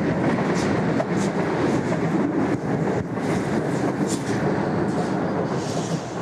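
A train running along the rails, a steady rumble with several brief high-pitched accents, growing fainter near the end.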